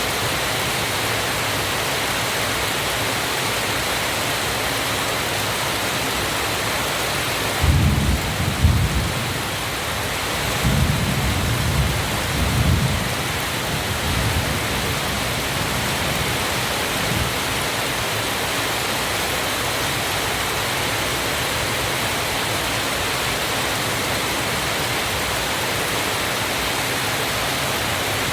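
Waterfall rushing steadily, with a few deep rumbles swelling up and fading between about eight and thirteen seconds in.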